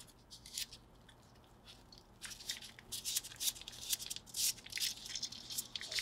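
Quick dry clicks and scratchy strokes from a Swiss Army knife being worked by hand, sparse at first and coming thick and fast from about two seconds in.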